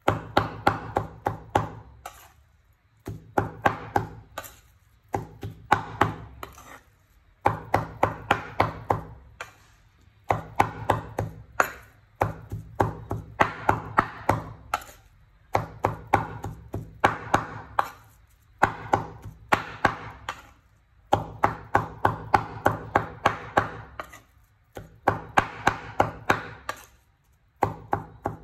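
Steel cleaver chopping raw meat into mince on a wooden cutting board: quick runs of sharp strikes, several a second, broken by short pauses.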